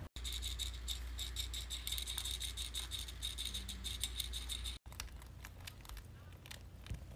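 Rat sounds: a rapid run of high-pitched chirping pulses for about four and a half seconds, then, after a sudden cut, scattered sharp clicks and scratching.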